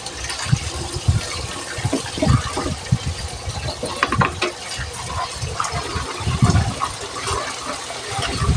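Kitchen tap running into a plastic basin while leafy greens and a plastic plate are rinsed by hand. Splashing and low knocks from handling run through it, with a few sharper clacks about four seconds in as the plate is moved.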